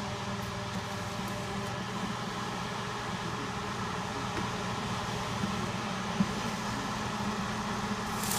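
Excalibur food dehydrator running on a drying cycle: its fan gives a steady hum and whir of moving air. There is a single light tap about six seconds in.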